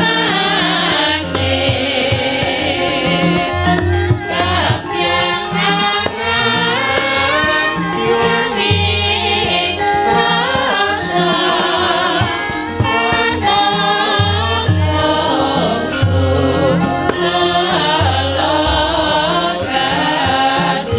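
Several female sinden singers sing together into microphones over a Javanese gamelan ensemble, with low, repeated percussive strokes beneath the voices.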